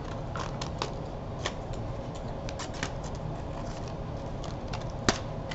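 Scissors cutting through a folded paper plate: irregular snips and paper crinkling, over a steady low hum.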